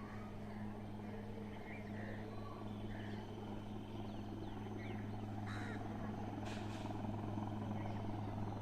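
Steady low hum of a helicopter slowly growing louder, with crows cawing now and then.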